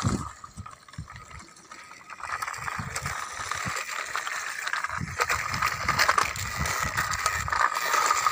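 Plastic toy trucks pushed slowly along rough concrete: hard plastic wheels rolling with a gritty rattle and scattered small clicks, getting louder about two and a half seconds in.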